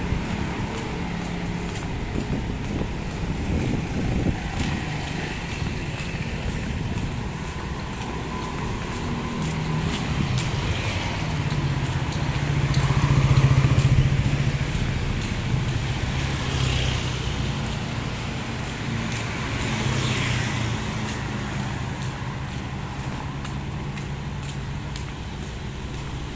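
Street traffic: cars and motor scooters passing on the road, with one vehicle's engine hum swelling to its loudest about halfway through and then fading away.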